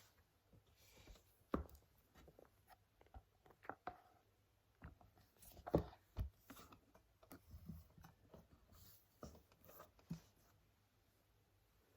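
Faint, irregular taps, clicks and short scratches of someone writing and handling study things at a desk. The two sharpest taps come about one and a half and six seconds in.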